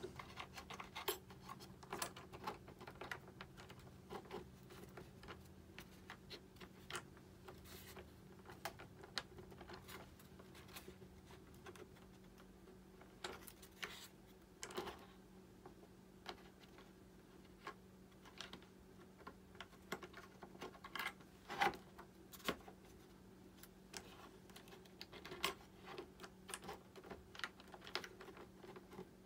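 Scattered light clicks and taps, irregular and of varying strength, from small parts being handled while fitting retractable landing gear into a foam RC jet, over a faint steady hum.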